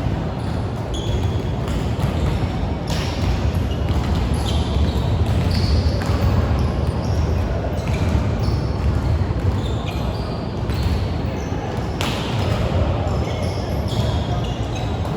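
Indoor volleyball play in a sports hall: the ball being struck and landing again and again, sneakers squeaking on the court floor, and players' and spectators' voices over a steady low hall rumble.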